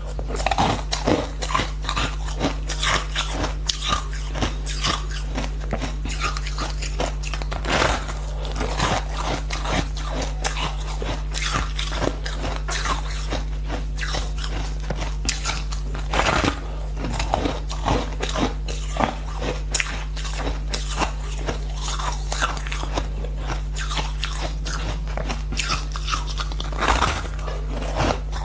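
Close-miked biting and chewing of frozen shaved ice balls: dense, irregular crunching and crackling throughout, over a steady low hum.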